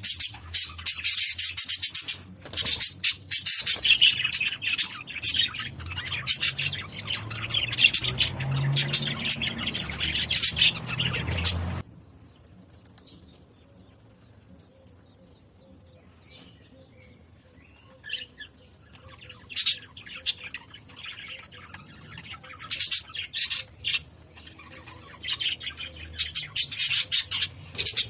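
Young budgerigar chattering and chirping in quick, busy bursts of high notes. The chatter drops off suddenly about twelve seconds in, leaving only a few scattered calls. It picks up again about seven seconds later and is loudest near the end.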